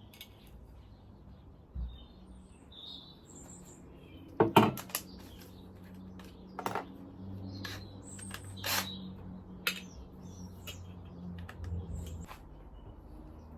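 Several sharp knocks and clatters a second or two apart, the loudest a quick double knock about four and a half seconds in, over birds chirping and a low steady hum.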